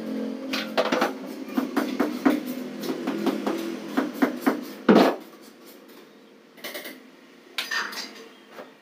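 A quick run of sharp clinks and knocks of hard objects being handled, with the loudest knock about five seconds in, followed by two fainter scraping sounds. Background music fades out in the first few seconds.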